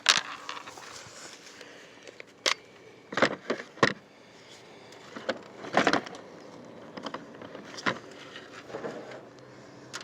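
Handling noise from a cordless impact driver and its battery pack: scattered plastic clicks and knocks, about half a dozen sharp ones spread out, with no motor running.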